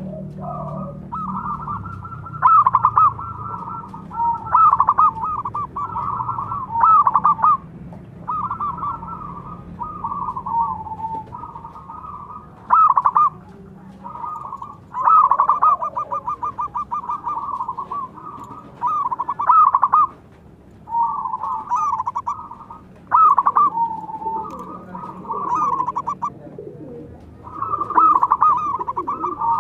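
Zebra doves (perkutut) cooing: rapid, rolling cooing phrases follow one another with only short gaps, several birds calling back and forth.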